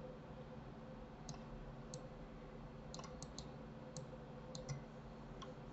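Computer mouse clicking: about ten short, sharp clicks at irregular intervals, several in quick succession around the middle, over a faint steady electrical hum.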